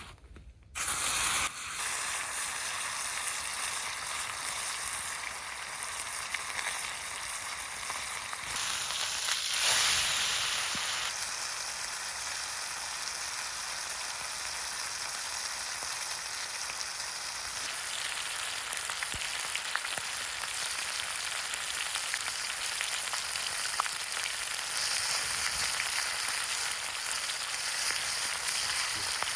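Steady hiss of rain falling, starting abruptly about a second in and swelling briefly about ten seconds in.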